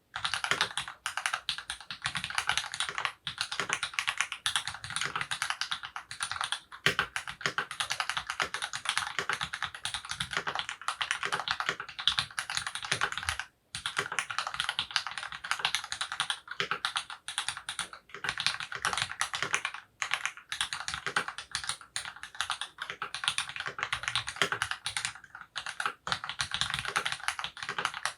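Fast, continuous typing on a mechanical keyboard with lubed Cherry MX Black (Hyperglide) linear switches on a brass plate in an aluminium case, with GMK keycaps. Key strokes come in dense runs, pausing briefly about halfway through.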